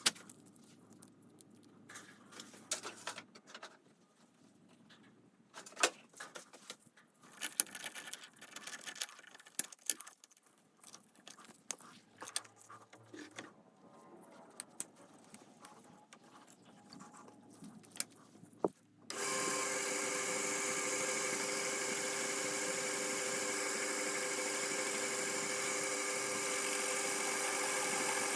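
Scattered sharp clicks and knocks, then about two-thirds of the way in the TV-16 lathe's electric motor starts abruptly and runs with a steady machine hum made of several fixed tones.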